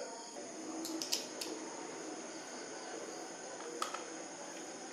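A few light clicks and taps of small tools and parts handled on an open laptop's internals, over a steady faint hiss: three quick clicks about a second in and a single one near the end.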